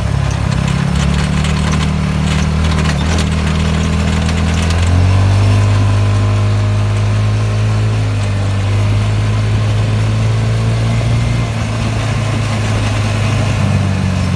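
Go-kart engine running while driving along a paved street; it speeds up about five seconds in, then holds a steady pitch.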